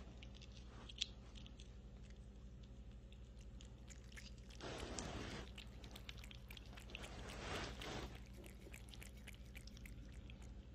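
A kitten licking a paste treat from a squeeze packet: faint, quick, wet licking clicks, with two louder stretches of busier licking about five and eight seconds in.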